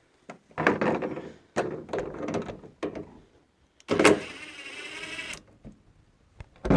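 Knocks and plastic rattling as the wiring connectors at the top of a refrigerator door are unplugged. About four seconds in there is a loud scraping slide lasting about a second and a half, and a thump comes near the end.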